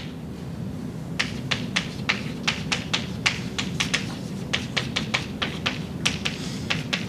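Chalk tapping against a blackboard while writing: a quick irregular run of sharp clicks, about four a second, starting about a second in, over a steady low room hum.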